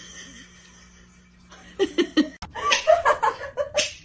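A person laughing in repeated short bursts, starting about two seconds in after a quieter stretch with a faint steady hum.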